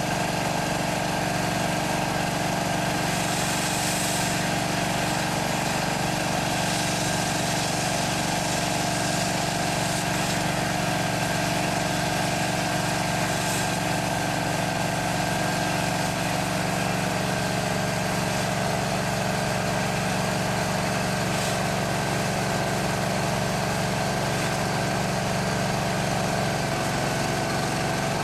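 High-pressure drain jetter running steadily, its engine-driven pump holding an even note, with the nozzle's water jet spraying and flushing sludge out through a pipe.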